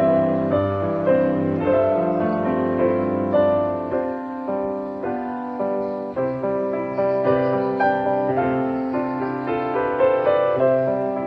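Background piano music, a slow melody of separate notes over sustained lower notes.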